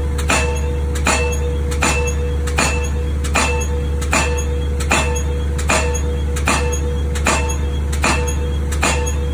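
Pajot 1200C pneumatic pile hammer driving a steel H-beam pile, striking at a steady rate of about four blows every three seconds, each blow a metallic clang that rings on. A steady low drone runs underneath.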